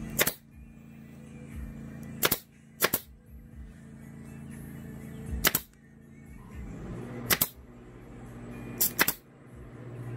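Staple gun firing staples through thick alligator-pattern upholstery vinyl into a mini bike seat base: about seven sharp snaps at uneven intervals, two of them in quick pairs.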